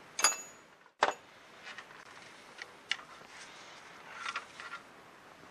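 Metal hand tools clinking against the AC compressor and its mounting as the mounting bolts are worked loose. Two sharp clinks about a second apart, then lighter scattered ticks and a short run of clicks about four seconds in.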